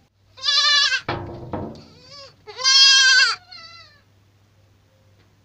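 Goat kids bleating: two loud, high, quavering bleats about two seconds apart, with a lower, rougher call between them and a fainter bleat trailing the second.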